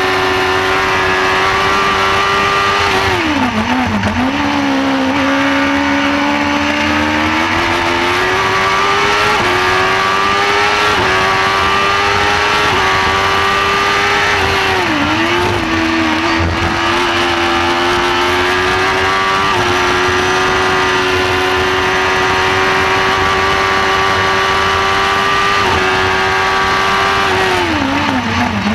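Onboard sound of a Shortcar race car's motorcycle engine running hard at high revs. Its pitch holds high on the straights, drops sharply three times (about 4 s in, about 15 s in and near the end) as the car brakes and shifts down for corners, then climbs again.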